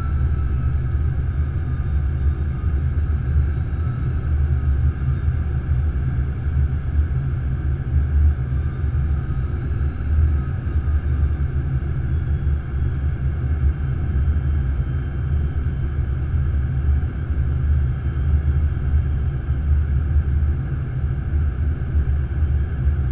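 Steady low rumble of an Airbus A330-200's flight deck on approach, from the engines and the airflow over the nose. It carries faint whines that drift slowly in pitch.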